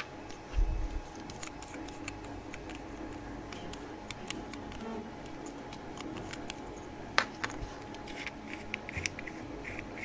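Small plastic clicks and taps as an emergency-stop push button and its contact blocks are handled and fitted together on a cutting mat, with a low bump about half a second in and a sharper click about seven seconds in.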